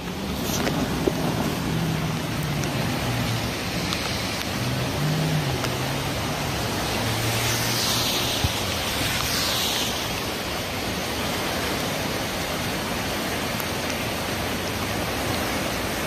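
A storm-swollen creek in flood rushing steadily, with rain falling. A low hum, shifting in pitch, runs under the water for roughly the first ten seconds.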